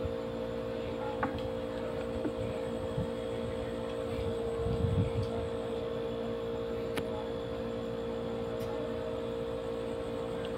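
Steady mechanical hum from an unseen machine, with a few faint clicks and a brief low rumble about five seconds in.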